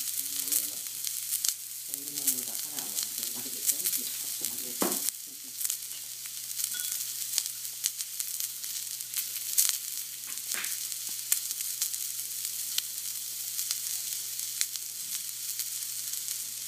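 Thick block of marbled beef searing on a hot ridged iron griddle plate: a steady high sizzle with frequent sharp crackles and spits of fat.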